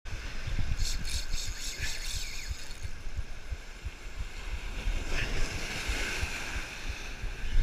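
Wind buffeting the microphone over surf breaking on rocks, with a spinning reel's drag clicking fast as a hooked yellowtail kingfish pulls line, from about one to two and a half seconds in.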